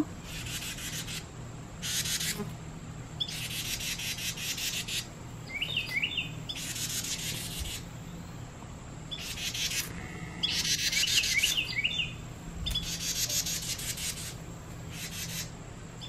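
Carolina wren giving a run of about eight harsh, buzzy rasping calls, with a couple of short chirps between them: the scolding chatter of a parent wren at a person near its fledgling.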